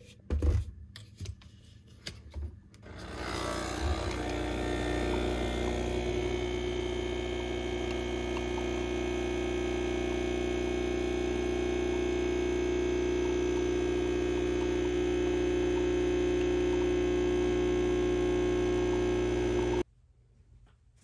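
A few clicks and knocks, then a steady machine hum with a constant whine that starts about three seconds in and cuts off abruptly near the end.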